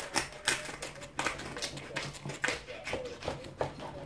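Knife crunching through the crisp crackling of a roast pork on a wooden carving board: a quick, irregular series of sharp crunches and cracks as the blade saws through the hard skin.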